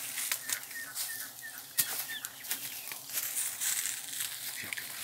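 Dry rustling and crackling, with a run of short high chirps in the first second and a half and a sharp snap just under two seconds in.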